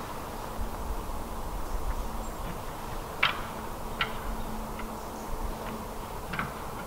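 Red deer stags' antlers clacking in the distance: about five sharp, irregular clacks over a steady outdoor hiss, the loudest about three seconds in.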